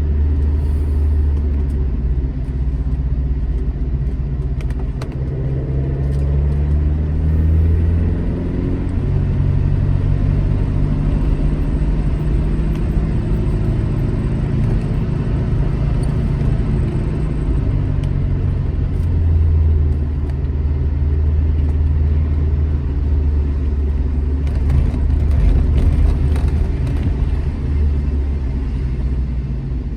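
Alfa Romeo GT Junior's twin-cam four-cylinder engine driving on the road. It pulls up in pitch for a few seconds, drops at a gear change about eight seconds in, then runs at a fairly steady speed with small rises and dips.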